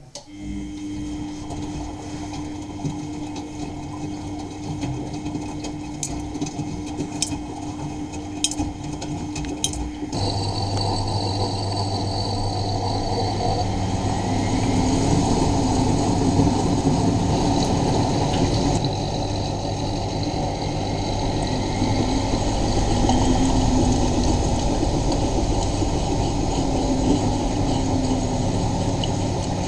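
Miele Novotronic W923 washing machine running, with water sounds and a few sharp clicks in the first third. About ten seconds in it gets louder as a steady low motor or pump hum starts and keeps going.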